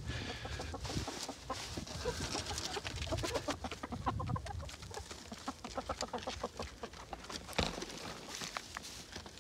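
A flock of domestic hens clucking, many short calls overlapping as they come out of the coop and move about, with a single knock about three-quarters of the way through.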